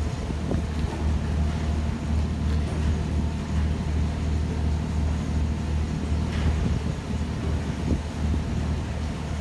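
Steady low mechanical hum, like a running engine or motor, holding an even pitch throughout.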